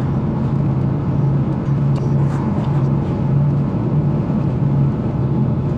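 Car engine and tyre noise heard inside the cabin while driving: a steady low drone over road rumble.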